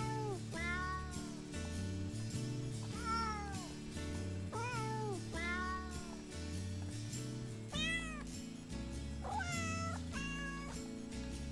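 A novelty country tune sung in cat meows: short pitched meows, each rising and falling, one after another in time with a steady bass-and-chord backing.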